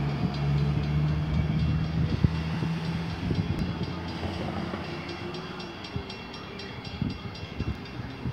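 EMD GP-9 diesel locomotive running as the train approaches, a steady low engine drone that weakens after about three seconds.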